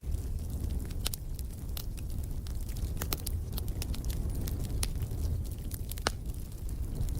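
Wood fire in a fireplace crackling: irregular sharp pops and snaps over a steady low rumble of the flames, with one sharper pop about six seconds in.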